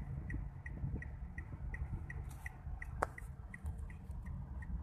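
A car's flasher relay ticking steadily, about three clicks a second, over a low rumble of road noise inside the cabin, with one sharper click about three seconds in.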